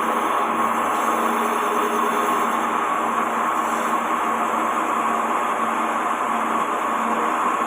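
Lathe running steadily while a radius cutter turns the roller for a dowel machine: an even machining noise over a steady motor hum.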